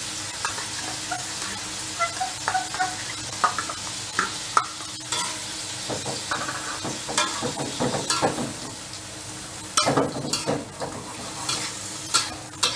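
Peeled shrimp sizzling in oil and sauce in a wok, stirred with a metal spatula that scrapes and clicks against the pan, busiest near the end.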